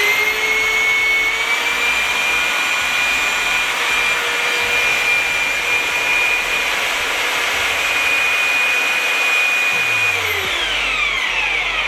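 Parkside 1800 W twin-paddle mortar mixer's electric motor running under load while churning concrete in a bucket. Its whine rises in pitch over the first two seconds, holds steady, then falls away from about ten seconds in as the motor slows down.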